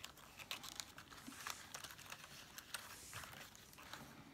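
Faint rustling and small crinkles of thin paper as hands handle and press a cut-out pop-up piece against a card.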